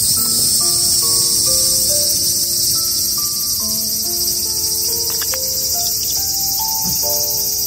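Loud chorus of cicadas, a steady high buzzing. Soft background music of gentle single notes plays underneath.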